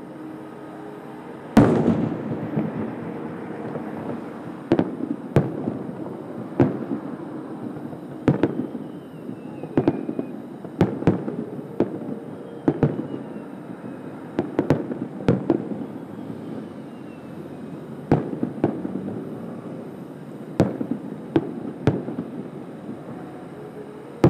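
Aerial firework shells bursting, heard from about a kilometre away: a loud bang about one and a half seconds in, then a steady run of sharp reports roughly once a second over a continuous low rumble.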